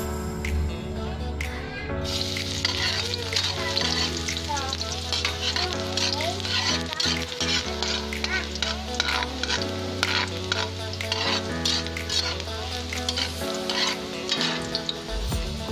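Chopped garlic sizzling in hot oil in a wok, with a metal spatula stirring and scraping it around; the sizzle picks up about two seconds in. Background music plays underneath.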